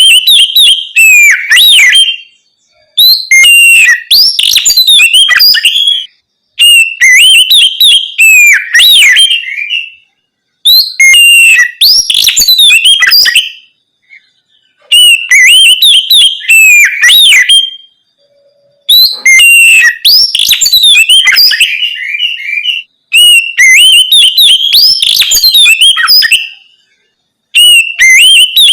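Oriental magpie-robin (kacer) singing loud, varied whistled phrases in the open 'ngeplong' style. The phrases last a few seconds each, with short pauses of about a second between them.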